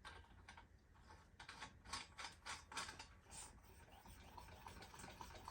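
Faint, irregular clicks and light rattles as the parts of a new camping lantern are handled, a handful of ticks clustered in the middle.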